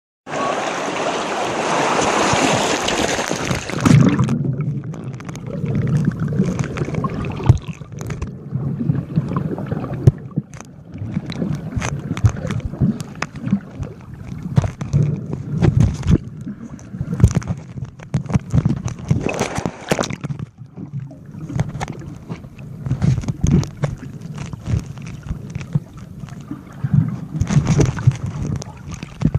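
Seawater recorded by a phone sealed in a waterproof pouch: a loud rushing hiss for about the first four seconds, then muffled underwater sloshing and gurgling with many short knocks and clicks.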